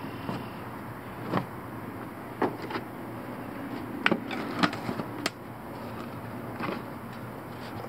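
Short clicks and knocks of a plastic jar and its blue screw-on lid being handled and twisted, the sharpest cluster a little past the middle, over a steady low background noise.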